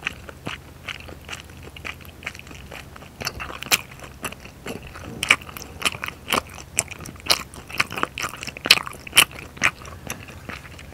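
A person chewing a mouthful of spicy rabokki (rice cakes and ramen noodles) close to the microphone: irregular sharp mouth clicks and smacks, several a second, loudest in the second half.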